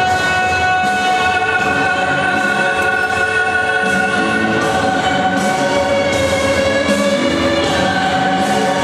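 Figure-skating program music: choral singing with long, held notes layered over one another.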